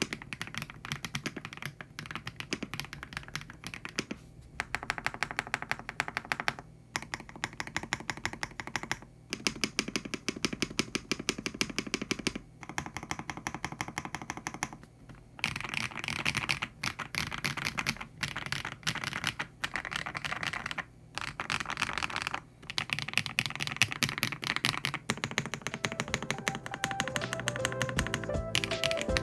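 Fast typing on a YUNZII YZ98 mechanical keyboard with factory-lubed HMX Cheese linear switches: a quick, dense run of keystrokes broken by short pauses every few seconds. Music comes in under the typing near the end.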